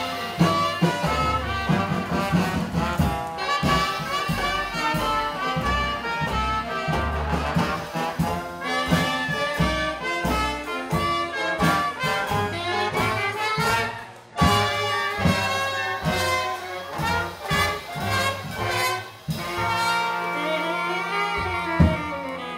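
Traditional 1920s-style jazz band playing live: trumpet, clarinet, trombone and saxophone over upright bass, banjo and drums. The music drops out briefly about halfway through, and near the end the horns hold long notes with one sliding up and down in pitch.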